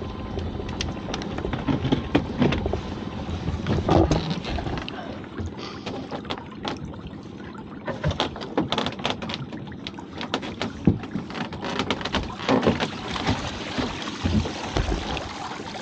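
A lobster pot being hauled up the side of a small fishing boat and brought aboard: irregular knocks and clatter of the pot and rope against the hull, with water splashing off it, over a steady low rumble. The knocking is busiest in the second half.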